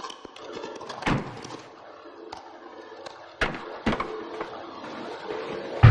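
Faint hissing noise broken by sharp knocks: one about a second in, then two more close together around three and a half seconds in.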